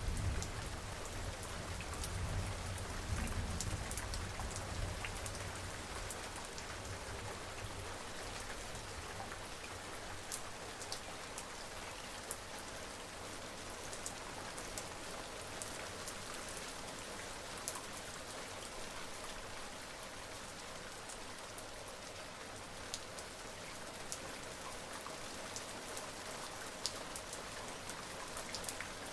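Steady rain falling on a surface, with single drops striking sharply now and then. A low rumble of distant thunder fades away in the first few seconds.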